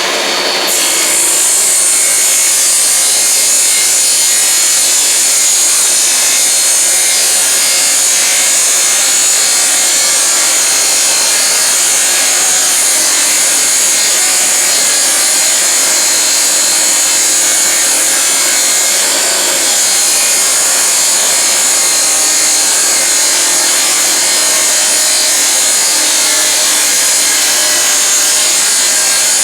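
Table saw ripping a board lengthwise into strips: the blade goes into the wood about a second in and keeps up a steady, loud, high-pitched hiss over the running motor, with a brief dip partway through.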